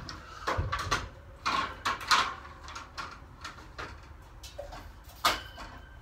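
Knocks, clunks and clicks of objects being moved and handled while rummaging. A cluster of sharp knocks comes between about half a second and two seconds in, and a single loud knock a little after five seconds.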